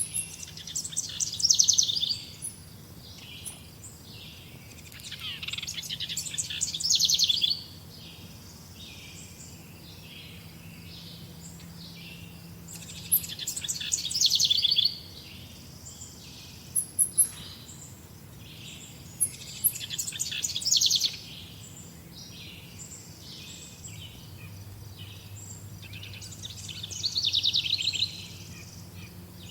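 Songbirds singing: one bird repeats a loud song phrase of rapid, quickly repeated notes five times, about every six seconds, over softer chirps from other birds.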